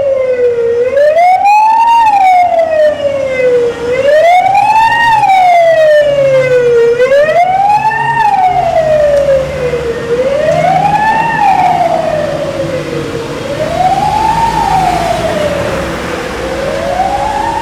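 Malfunctioning fire alarm siren of a multi-storey parking garage wailing loudly in a false alarm, its pitch rising quickly and falling slowly about every three seconds. The wail grows somewhat fainter in the second half.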